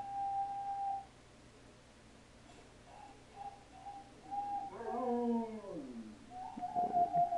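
A dog whining and howling: a held high whine in the first second, a few short whimpers around three to four seconds in, a howl that falls in pitch about five seconds in, and a long wavering whine near the end.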